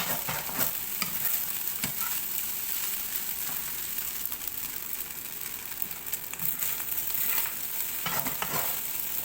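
Fried rice sizzling in an oiled pan over a high flame while it is stirred, with scattered short scrapes and clicks of the stirring against the pan, several of them close together near the end.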